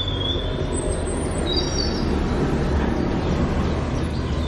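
A heavy truck's engine running with a steady low rumble, with a few short bird chirps in the first two seconds.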